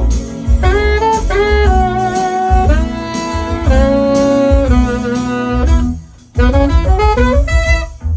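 Saxophones playing a jazz tune over a pulsing low beat. The music drops out briefly about six seconds in, then a melody line slides upward in pitch near the end.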